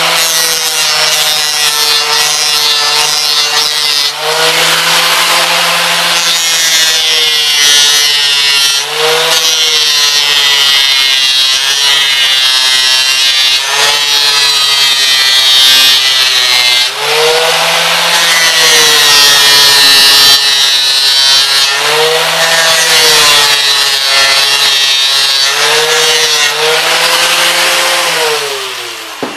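Small electric angle grinder with a sanding disc running against a brass font, smoothing down a soldered patch: a steady motor whine with the rasp of abrasive on brass, the whine sagging in pitch each time the disc is pressed in and then recovering. Near the end the grinder is switched off and winds down.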